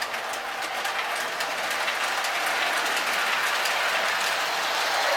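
Lionel toy passenger train rolling along its track, with a steady running rattle and faint clicking of the wheels over the rail joints, getting gradually louder as it comes closer.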